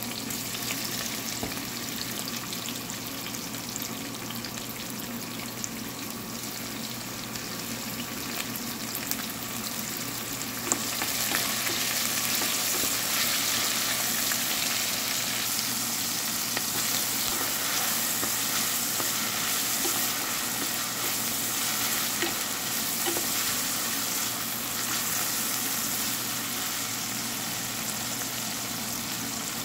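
Sliced onions sizzling as they fry in hot ghee in a stainless steel pot, stirred with a wooden spoon. The sizzle grows louder about eleven seconds in.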